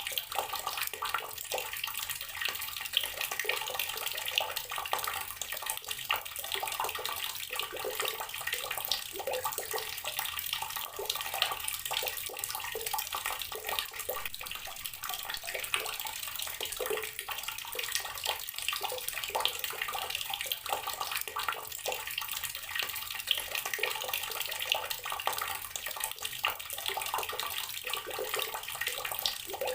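Outdoor water tap running steadily, its stream splashing with an irregular patter of small splashes.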